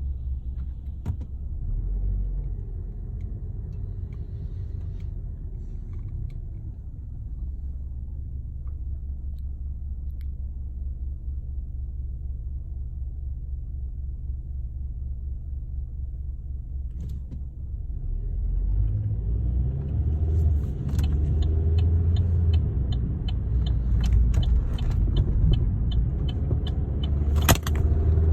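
2013 Chevrolet Sonic heard from inside the cabin while driving: a steady low engine and road rumble, then about two-thirds of the way through the engine note climbs and grows louder as the car accelerates.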